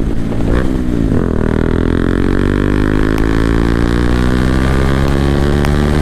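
Bajaj Dominar 400's single-cylinder engine running through an aftermarket exhaust under way. Its note dips about a second in, then rises steadily as the bike accelerates; the exhaust is very loud.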